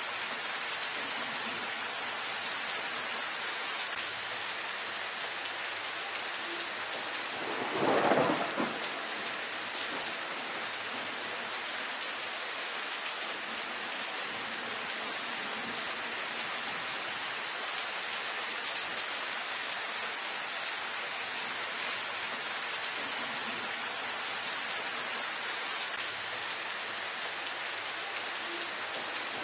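Steady rain falling on leafy foliage, an even hiss, with one brief louder burst about eight seconds in.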